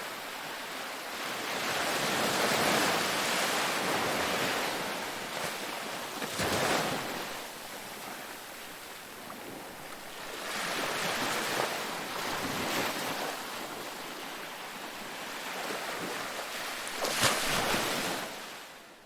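Sea waves breaking and washing in, the surf rising and easing in swells every few seconds, with a sharper crash near the end before the sound fades out.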